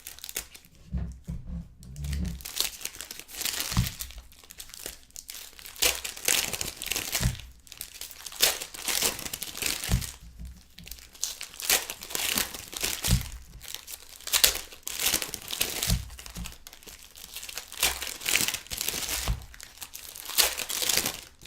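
Wrappers of 2016-17 Panini Excalibur basketball card packs being torn open and crinkled, with cards handled, in a steady run of irregular crinkles and rustles.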